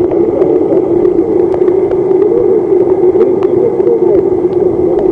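Underwater sound inside a seawater tank, picked up through a submerged camera: a steady low hum with short burbling glides and scattered faint clicks.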